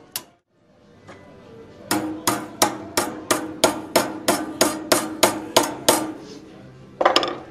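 Ball-peen hammer striking a perforated metal strap clamped in a bench vise, bending it over to form a lamp yoke. About a dozen evenly paced blows come roughly three a second, each with a short metallic ring, then a louder cluster of blows near the end.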